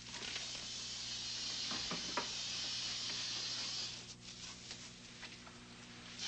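A steady hiss for about four seconds, which then fades away, with a couple of faint knocks about two seconds in.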